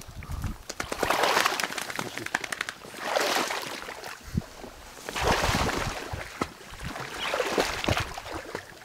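Wading through shallow marsh water: four sloshing, swishing steps, about one every two seconds.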